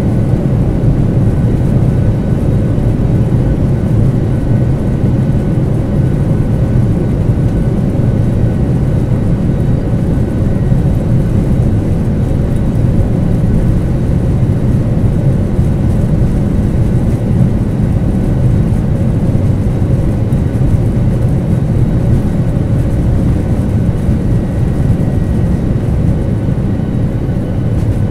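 Steady low roar of engine and airflow noise inside the cabin of a Boeing 737-800 airliner in flight, with a few faint steady tones above it.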